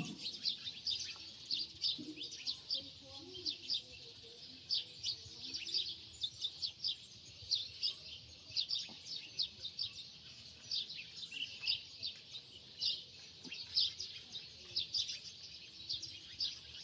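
Small birds chirping continuously: a dense, irregular stream of short, high chirps, several a second.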